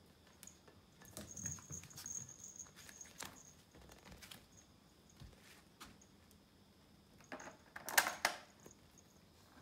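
A Pomeranian puppy playing with a toy ball on a vinyl floor: scattered light taps and scuffles of paws and ball, a busier run of them about a second in, and a louder clatter of knocks near the end.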